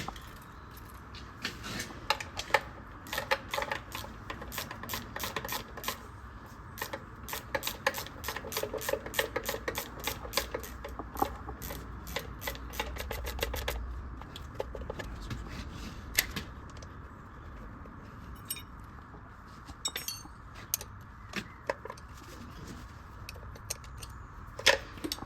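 Hand socket ratchet clicking in quick runs as a bolt is wound in or out, several clicks a second for the first half, then scattered clicks and light metal knocks.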